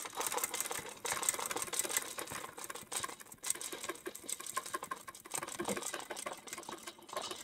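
Sewing machine stitching at a fast, steady needle rate during free-motion ruler quilting, as the quilt is guided along a curved acrylic ruler, with a couple of brief pauses.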